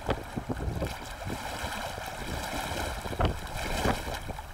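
Wind buffeting the microphone in uneven low rumbling gusts, with a hard gust about three seconds in, over a steady wash of choppy water.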